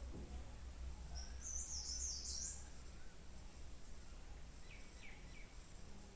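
Birds chirping: a quick burst of high chirps about a second in, then two short downward-sliding calls near the end, over a faint low steady hum.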